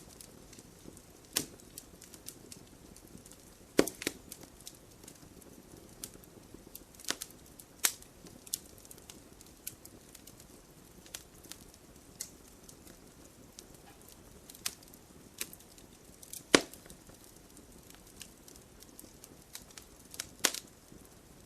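Wood burning in a campfire: irregular crackles and sharp pops over a soft hiss, with a few louder snaps, the loudest about four, sixteen and twenty seconds in.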